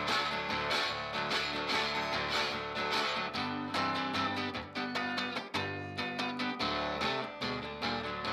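Steel-string acoustic guitar played blues-style with no singing: a busy run of picked notes and strums.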